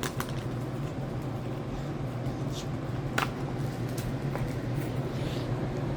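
A few faint, scattered crinkles of a foil Pokémon card booster pack being handled and worked open, over a steady low hum.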